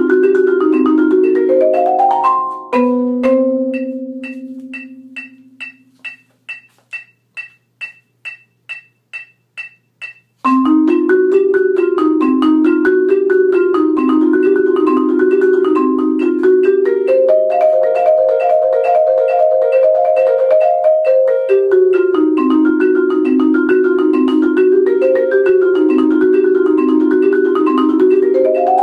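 Solo marimba played with mallets in fast, repeating note patterns. About two seconds in a rising run ends on a held low note that dies away, leaving only a steady ticking about twice a second until the playing starts again about ten seconds in.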